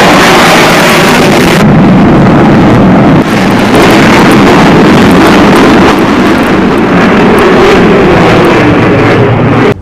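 Chengdu J-20 stealth fighter flying a display pass, its domestically built jet engines making loud, steady jet noise with a rough, rumbling edge. It cuts off suddenly near the end.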